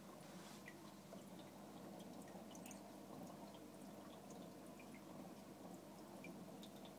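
Faint aquarium running sounds: a steady low hum from the tank's filter or pump, with scattered small drips and ticks of water.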